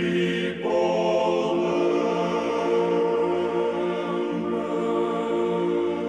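Church choir singing a slow Orthodox chant in long held chords, the chord changing about half a second in.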